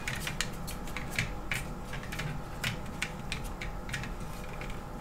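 Irregular small clicks and taps of a plastic iPad holder being screwed by hand onto the threaded mount of a magic arm.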